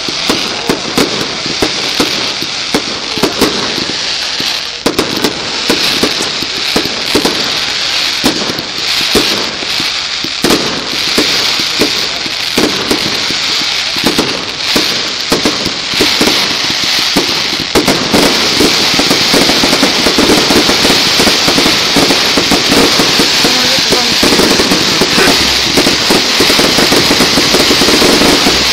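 Fireworks display: a steady run of sharp bangs and pops, which about two-thirds of the way through thickens into a louder, dense barrage of crackling.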